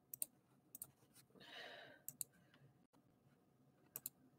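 Near silence with a few faint clicks and one soft breathy exhale, like a sigh, about a second and a half in.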